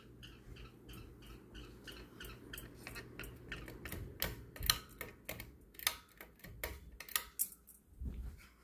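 Ceiling fan running with a low hum and a regular light ticking, about three ticks a second. From about three seconds in come irregular sharper clicks and rattles as the pull chain and switch housing are worked to change the fan's speed.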